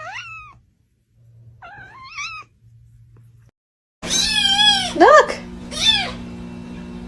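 A cat meowing: two short, rising meows in the first half, then louder, longer wavering meows over a steady hum after a cut about halfway through.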